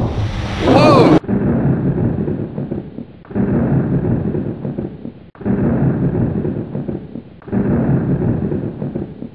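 Thunder: four claps about two seconds apart, each starting sharply with a deep rumble that fades away. A brief loud sound with a sliding pitch comes about a second before the first clap.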